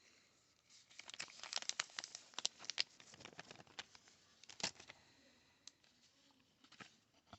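Wrapper of a 2021 Topps Archives baseball card pack being torn open and crinkled: a dense run of crackles for the first few seconds, a sharper snap in the middle, then a few scattered clicks.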